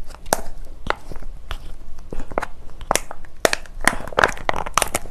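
Plastic sauce pouch crinkling and crackling in irregular sharp bursts as it is squeezed and tugged at, while it resists being torn open.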